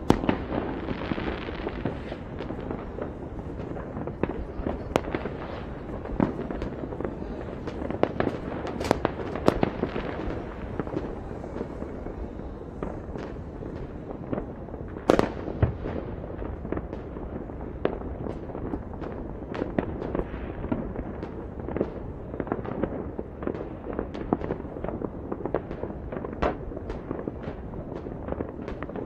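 Many fireworks and firecrackers going off at once: a steady rumble of distant bangs with frequent sharper cracks, the loudest about 15 seconds in.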